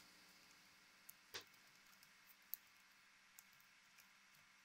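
Near silence with about half a dozen faint, scattered clicks and one soft knock about a second and a half in: a Tascam 112 MkII cassette transport's metal chassis being handled and turned over.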